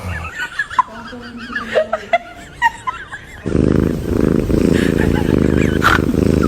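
Puppy growling: a low, rough sound starts about halfway in and keeps going.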